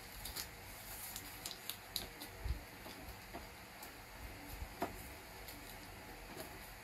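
Small origami paper units being folded and handled: scattered crisp paper rustles and clicks, with a low thump about two and a half seconds in and another click near five seconds.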